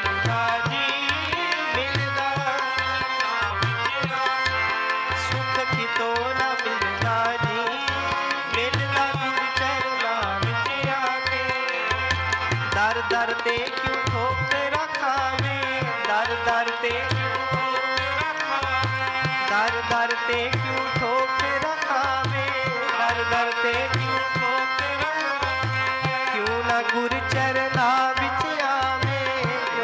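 Harmoniums and tabla playing an instrumental passage of a Sikh devotional dharna: the harmoniums hold a sustained, wavering melody while the tabla keeps a steady rhythm, its bass drum giving regular deep strokes.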